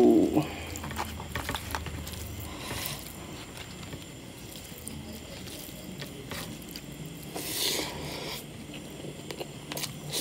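Fingers mixing rice with pork curry on a plate: faint soft squishes and small clicks, with one louder squish about seven and a half seconds in.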